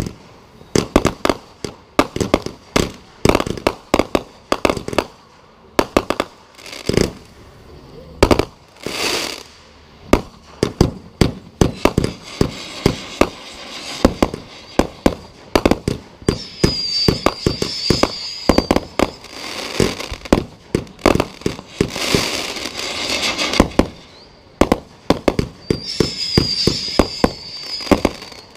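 Consumer aerial firework cake firing shot after shot: dozens of sharp bangs from launches and bursts overhead, with a stretch of dense crackling in the middle. A high, wavering whistle comes in twice in the second half.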